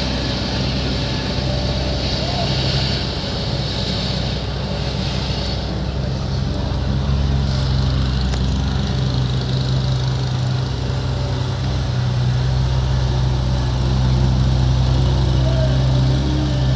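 Caterpillar skid steer loader's diesel engine running steadily.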